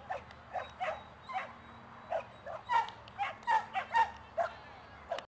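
A dog barking in a rapid string of short, sharp barks, about a dozen, loudest around the middle. The sound cuts off abruptly just before the end.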